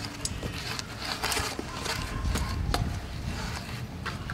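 BMX bike being ridden through flatland tricks on concrete: scattered sharp clicks and knocks with short tyre scuffs on the ground.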